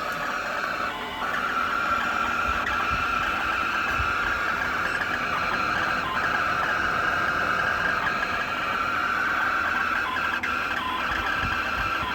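EcoFlow Wave 2 portable air conditioner running with an abnormal noise: a steady, harsh, high-pitched whine that recurs after a firmware update. It dips briefly about a second in.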